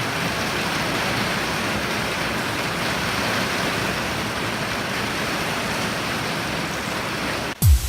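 Steady heavy rain, an even hiss with no breaks. Near the end it cuts off abruptly, and a single sharp low thump follows.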